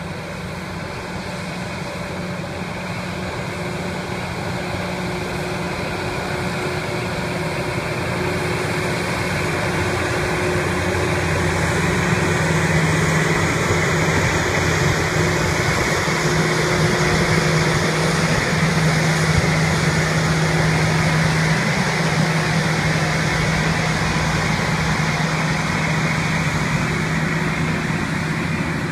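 Loram rail grinder train rolling slowly past, its diesel engines running with a steady low hum. It grows louder over the first dozen seconds as the cars draw near, then holds.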